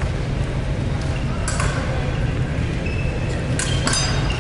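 Fencing blades striking each other: a sharp metallic clink about a second and a half in, then a quick run of ringing clinks near the end, over a steady low hum.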